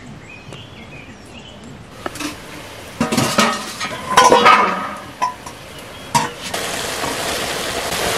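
A metal ladle stirring and scraping in a pan over a wood fire, with clinks and scrapes about two to five seconds in. From about six and a half seconds, a steady sizzle of mustard greens frying in a wok.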